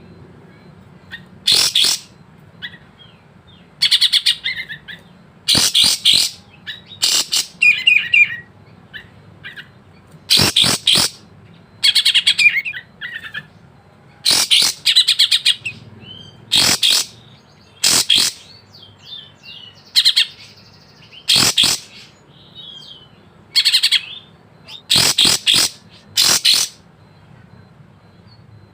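Kapas tembak singing: loud, short, sharp phrases, one every second or two, each a quick run of notes with varied 'isian' (borrowed song) woven in.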